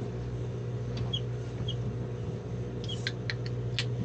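A steady mechanical hum from the boat's machinery, with a few short high chirps and a handful of sharp clicks near the end.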